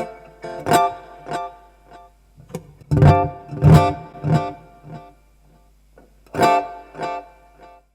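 Acoustic guitar strumming chords through an Elite Acoustics D4-8 acoustic amplifier, with a quieter gap a little after the middle. The amp's high-pass filter is set to maximum and switched in and out, so the bass of the chords comes and goes; it is fullest in the strums near the middle.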